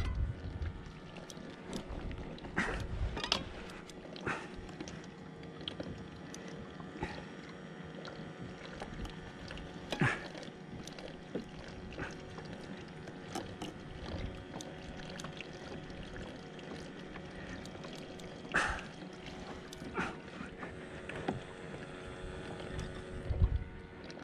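Small waves lapping against a plastic kayak hull under a faint steady hum, with scattered sharp knocks and creaks, the loudest about ten seconds in and again near nineteen seconds.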